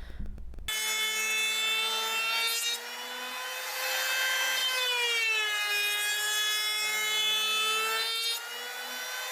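A power tool running with a steady high-pitched whine that starts about a second in. The pitch sags in the middle, then comes back up, as if the tool is being loaded.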